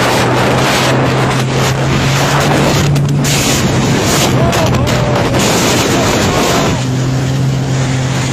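Jet ski engine running steadily at speed, with rushing water and wind on the microphone. The engine note shifts slightly near the end.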